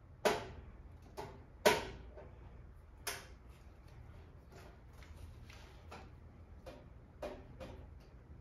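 Irregular sharp clicks and small knocks of parts being handled as the electrical switch is taken out of an espresso machine, the two loudest near the start.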